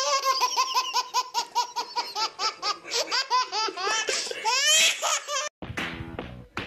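A young child laughing hard in a quick run of high-pitched, rhythmic laughs, breaking into rising squeals about five seconds in. The laughter cuts off abruptly and a different sound follows.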